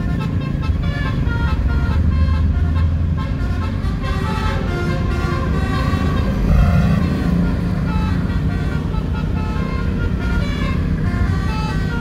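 A bus's basuri telolet horn playing a melody of quickly changing notes, over the low rumble of road traffic.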